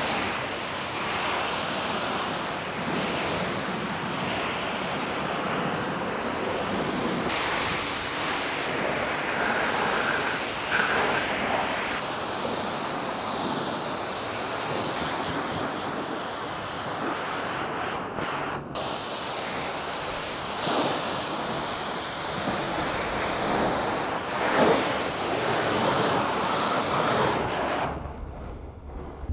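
Pressure washer spraying a jet of water onto a car, a steady hiss. It changes abruptly several times as the shots cut.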